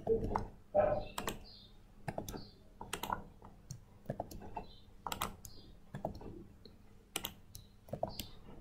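Typing on a computer keyboard: irregular keystrokes, a dozen or so sharp clicks spread unevenly. A brief low hum comes in the first second.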